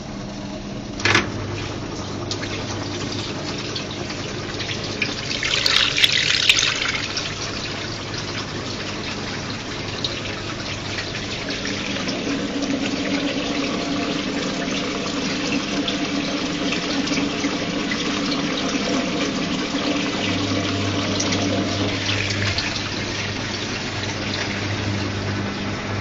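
Washing machines running mid-wash: soapy water sloshing and churning in a front-loader's drum and in an impeller (turbine) top-loader, over a steady motor hum. A louder hissing rush of water about six seconds in.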